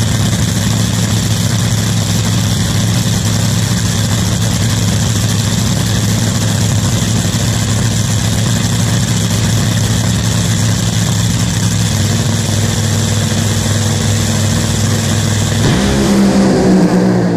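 Top Fuel dragster's supercharged nitromethane V8 idling steadily on the starting line, then about 16 seconds in the revs rise sharply and the level climbs as the car launches.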